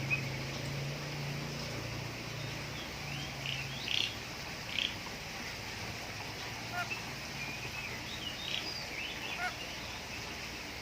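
Birds calling: short chirps and squawks every second or so, some in quick pairs. A low steady hum runs under the first few seconds and then fades.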